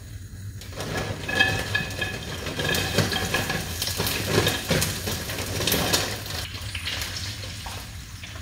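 Frozen french fries being tipped from a bag into a pan of hot oil, sizzling with many small crackles from about a second in.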